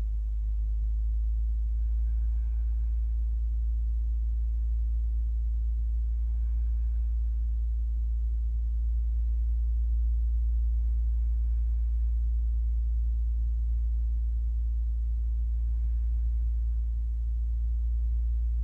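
A steady low rumble with a person's faint, slow breaths every four to five seconds, taken while holding a stretch.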